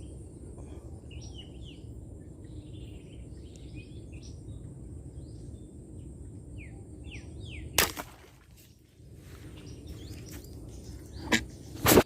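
Small birds chirping over a steady low outdoor hiss, broken by a sharp snap about eight seconds in and two more near the end.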